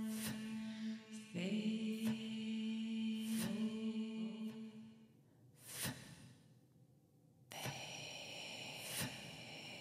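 A voice chanting a long held note that pauses briefly about a second in, starts again and fades out after about five seconds. Near the end a quieter, steady high-pitched ringing sound begins, with scattered soft clicks.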